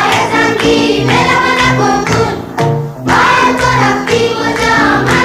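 Background music with a choir of voices singing over a steady accompaniment.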